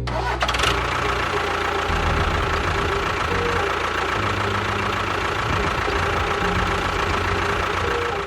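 An engine running steadily, with a fast, rattly low chug.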